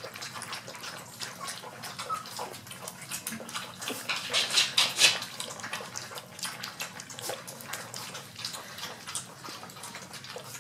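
Several four-week-old golden retriever puppies lapping milky puppy mash from a stainless steel saucer feeder: a busy, continuous run of wet lapping and slurping clicks, loudest about four to five seconds in.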